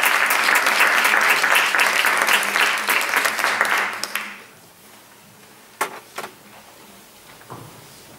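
Audience applause that dies away about four seconds in, followed by a few sharp clicks in the quiet hall.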